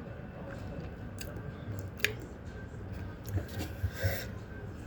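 Someone eating spicy instant ramen: small clicks and scrapes of a utensil against the noodle container, with chewing and slurping, and a sharp click about two seconds in.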